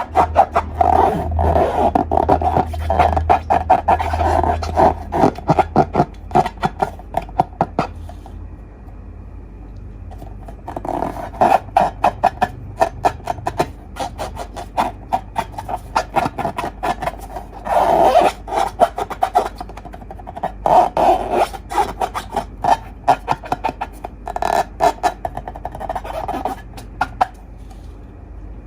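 Slime being squeezed and squished by hand, giving rapid runs of sticky clicks and pops in bursts, with a quieter lull about eight seconds in.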